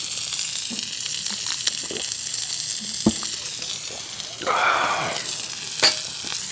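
Chicken skewers sizzling on a small iron griddle over a burner: a steady hiss, with a sharp knock about three seconds in and a brief louder noise a little later.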